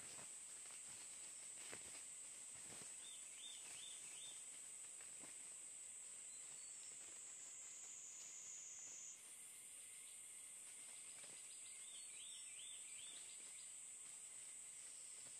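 Steady high-pitched insect drone of the forest, shifting in pitch about nine seconds in. A short wavering bird call comes twice, a few seconds in and again past the middle, with a few faint rustles in the dry leaf litter near the start.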